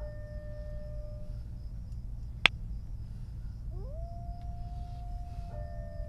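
Wolves howling: one long howl at the start, then a howl that rises and holds about four seconds in, overlapped near the end by a second one that slides down. Over a low steady rumble, with a single sharp crack about halfway through.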